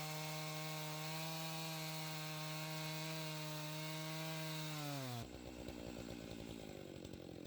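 Stihl two-stroke chainsaw on an Alaskan chainsaw mill running at full throttle with a steady high engine note while ripping through an oak log. About five seconds in the pitch sags and the throttle is released, and the saw drops to a lower, rougher idle.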